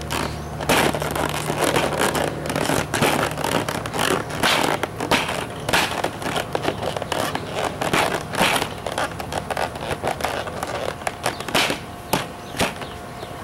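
Gamma Seal lid's plastic adapter ring being forced onto the rim of a five-gallon plastic Homer bucket by a person stepping and stamping on it: an irregular run of sharp plastic cracks, scrapes and thumps under his weight, starting about a second in and going on until near the end.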